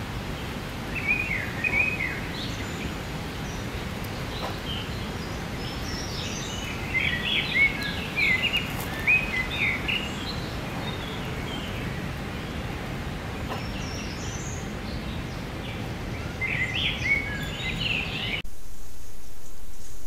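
Woodland songbird singing short phrases of quick, chirping high notes several times over a steady background hiss. About a second and a half before the end, the birdsong stops suddenly and a louder, even hiss takes over.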